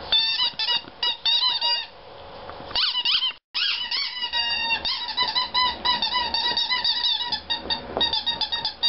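A plush squeaky toy squeaking rapidly and over and over as a small dog chews it. It comes in quick clusters at first, then drops out briefly about three and a half seconds in, then goes almost without a break.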